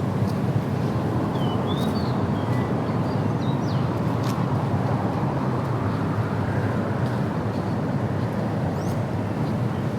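Steady low rumbling outdoor noise, with a few short, faint bird chirps about two and four seconds in and again near the end.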